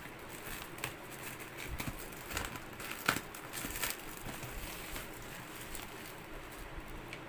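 Clear plastic wrapping on a cardboard courier parcel crinkling and rustling in irregular short crackles as hands grip and turn the box, with one louder crackle about three seconds in.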